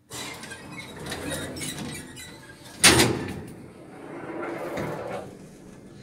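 Old Končar elevator's sliding doors running and rattling, meeting with a sharp bang about three seconds in, followed by a further few seconds of mechanical rattling.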